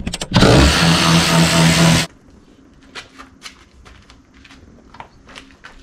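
Cordless DeWalt ratchet running for about a second and a half, spinning out a 14 mm E-Torx seat-mounting bolt, then stopping; a few faint knocks and taps follow.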